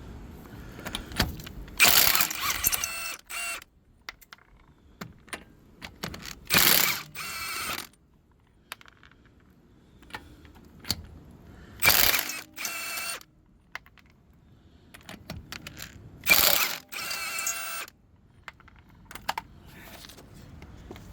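Ratcheting torque wrench tightening a car's lug nuts: four bursts of rapid ratchet clicking, each about a second long and a few seconds apart, with scattered small clicks and knocks between.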